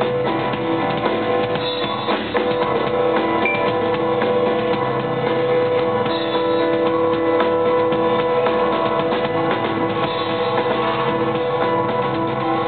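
Live rock band playing an instrumental passage with no vocals: a drum kit keeps the beat under held keyboard notes and electric guitar.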